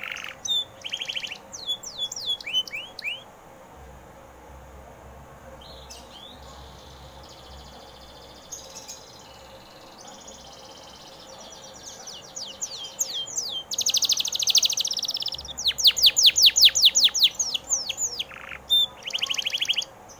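Domestic canary singing: quick downward-sweeping whistled notes and fast rattling trills. It sings loudly at first, softly in the middle, and loudest and densest in the second half.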